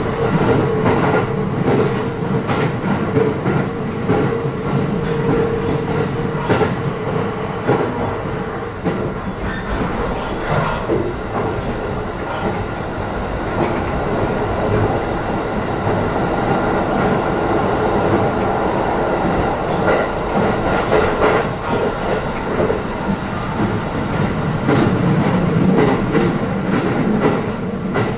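Cabin noise of a JR East E531 series electric multiple unit running at speed: steady rumble of wheels on rail, with a steady hum for the first several seconds and scattered clicks as the wheels pass rail joints.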